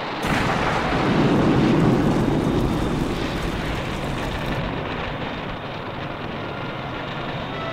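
Film explosion sound effect as a beam strikes the crashed jet: a sudden blast that swells into a rumbling roar, peaking about two seconds in, then dies down into a steady rushing noise as the wreck burns.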